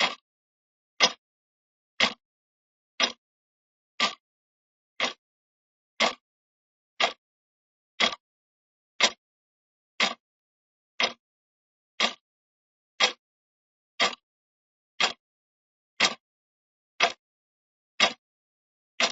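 Clock ticking steadily, one sharp tick a second with silence between.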